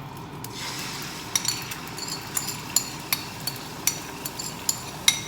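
Beaten eggs start sizzling in hot oil in a pan about half a second in. From a little later, a cooking utensil clicks and taps against the pan again and again as the egg is stirred.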